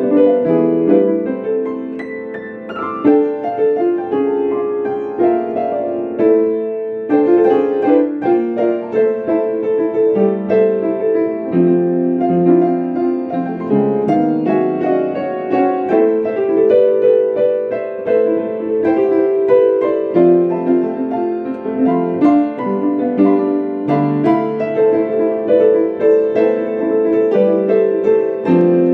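Ambient keyboard music played live, piano-like in tone: many overlapping held notes and chords, moving at an unhurried pace, with a brief thinning of the sound about seven seconds in.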